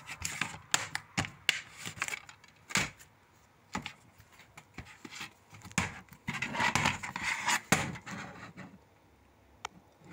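Plastic DVD and Blu-ray cases being handled and turned over: a run of sharp clicks and taps, with a stretch of rubbing and scraping about six to eight seconds in.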